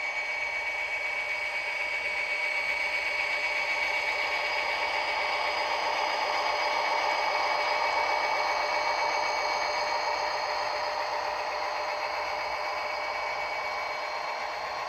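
Model freight train running past: the steady whine of the model locomotives' small electric motors and the clatter of wheels on the track, loudest about halfway through as the diesels pass.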